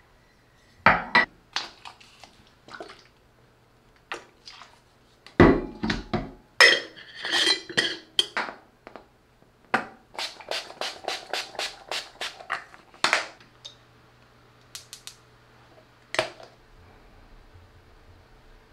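Hard objects clinking and clattering, like dishes and cutlery being handled, with a run of evenly spaced taps, about three a second, around ten seconds in.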